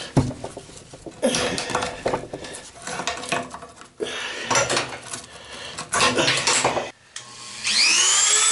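A screwdriver prying and twisting at a Dremel-cut nut on a chrome flush elbow, metal clicking and scraping in short bursts. Near the end a Dremel rotary tool spins up with a rising whine and settles into a steady high-pitched run.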